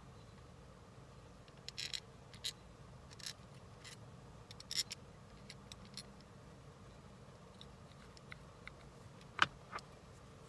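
Light clicks and rattles of a 2010 Nissan Versa seat-belt retractor's plastic and metal parts being handled and fitted together by hand, scattered through, with the sharpest click about nine seconds in. A faint low hum runs underneath.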